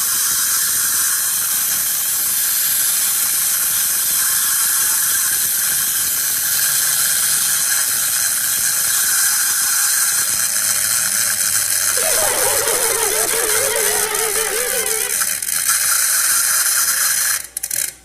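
Celebration sound effect of party noisemakers: a loud, continuous ratcheting rattle, joined about twelve seconds in by a wavering tone, stopping just before the end.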